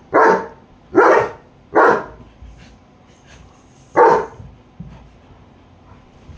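German Shepherd barking: four barks, three about a second apart, then a fourth about four seconds in.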